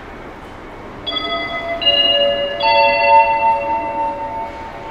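Station public-address chime over the platform loudspeakers: three bell-like notes enter one after another from about a second in and ring on together, fading near the end. It is the chime that comes before a train arrival announcement.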